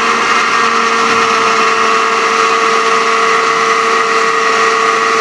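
Electric blender motor running steadily with a constant whine, grinding boiled chickpeas and their cooking water into a paste.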